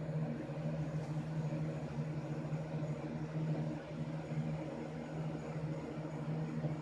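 A steady low mechanical hum, even throughout with no rhythm.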